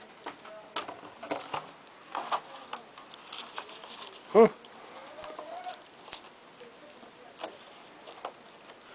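Scattered light clicks and rustling from the camera being handled, with one short, loud pitched squeal about four seconds in and a faint wavering murmur just after it.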